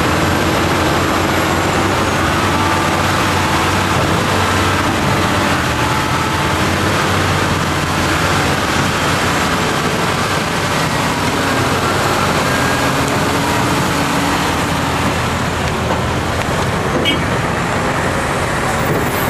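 Heavy diesel engines of a dump truck and earthmoving machines running steadily, a deep, even drone that hardly changes.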